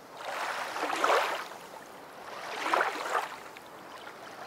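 Rushing water: two swells of wash about two seconds apart, like waves or a boat's wake surging in.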